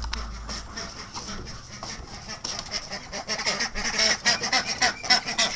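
Flock of domestic geese honking over and over in a rapid clamour that grows louder about three seconds in, the birds excited at feeding time.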